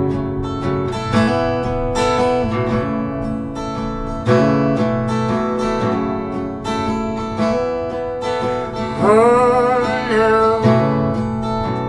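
Acoustic guitar strumming steady chords as the intro to a cover song. About nine seconds in, a short wordless vocal note rises and wavers for a second or so.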